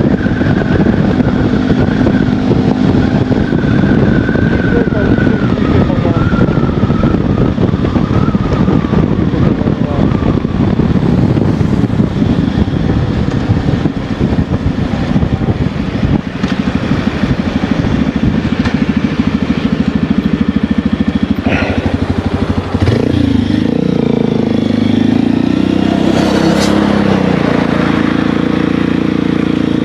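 Motorcycle engine running while riding on the road, its note sagging slowly at first; about three-quarters of the way through the engine pitch drops and rises again in a few glides as the bike slows and picks up speed.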